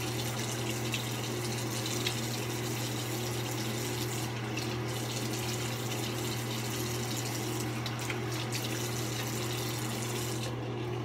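Bathroom sink tap running cold water steadily for a rinse after shaving, with a steady low hum underneath. The water shuts off near the end.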